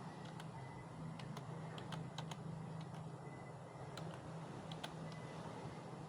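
Computer keyboard being typed on: irregular key clicks, about two a second with short pauses between runs, over a steady low hum.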